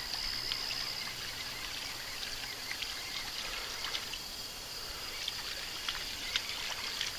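Jackall Pompadour topwater crawler bait being reeled across calm water, trickling and splashing on the surface as it comes in. A faint, steady high insect drone runs behind it.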